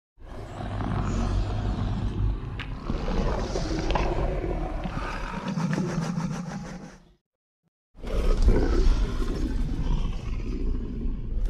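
Indominus Rex creature sound effect: a long, rough, rumbling roar lasting about seven seconds, then after a brief silence a second roar begins about eight seconds in.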